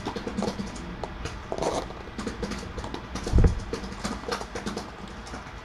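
Kittens scampering and climbing on cat furniture: irregular light taps and knocks of paws and claws, with one heavier thump about three and a half seconds in.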